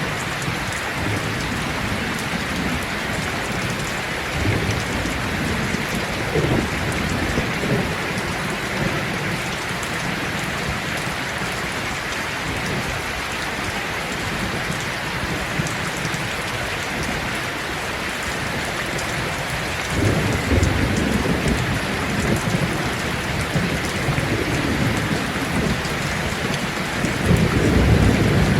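Heavy rain falling steadily, with low thunder rumbling in a few long swells: one about four seconds in, a stronger one from about twenty seconds in, and another near the end.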